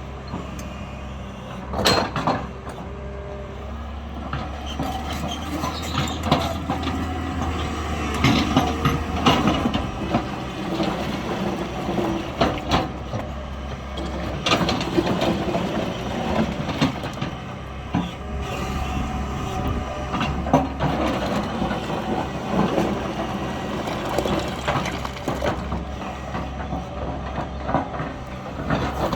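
JCB 3DX backhoe loader's diesel engine running steadily under load, with repeated irregular metallic clanks and knocks from the working bucket and arm.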